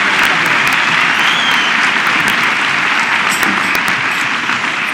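Theatre audience applauding steadily, a dense continuous clapping that eases slightly near the end.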